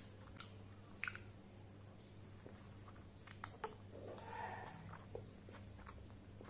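Close-up chewing of soft steamed momo dumplings, with scattered sharp wet mouth clicks.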